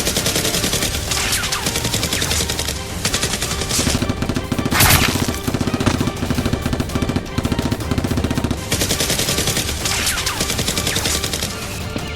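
Rapid automatic gunfire sound effects, firing in dense volleys, with one louder bang about five seconds in, over background music.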